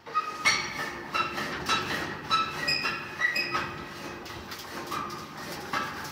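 Metal roller-shutter garage door worked by hand: irregular metallic clinks and rattles, about two a second, many with a short ringing tone.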